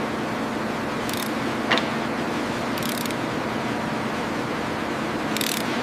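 Heavy industrial machinery running with a steady noise and a low hum, broken by three short hisses and two sharp clicks, as a heavy part is lowered slowly into place.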